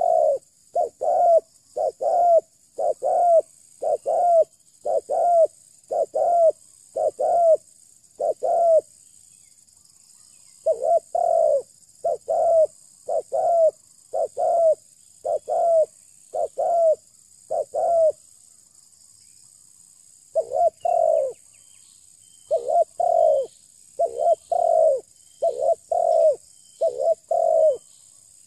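Spotted dove cooing: a long run of short, even coos at about one and a half a second, broken by two pauses of about two seconds. A steady high insect hiss runs underneath, with faint ticks near the end.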